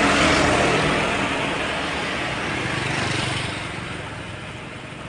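A bus driving past with its engine running and tyre and road noise, the sound fading away over the second half as it moves off.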